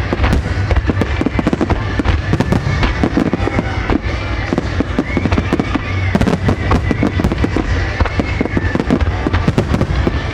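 Fireworks shells bursting in rapid succession, a dense run of sharp bangs and crackles over a continuous deep rumble, with music playing along.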